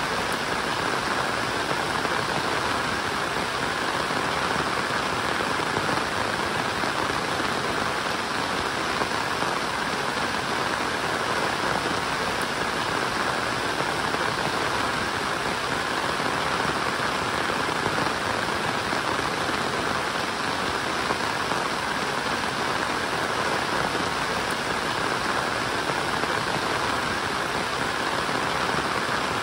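Steady rain falling: an even, unbroken hiss that holds at one level throughout.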